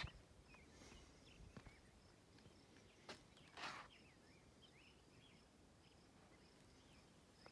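Near silence outdoors: faint birds chirping, an insect trilling in short, evenly repeated pulses, and a few soft footsteps.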